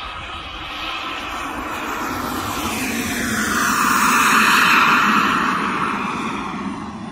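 Radio-controlled model turbine jet flying a low, fast pass: its turbine's rushing whine swells to a peak about four seconds in and then fades as it flies by.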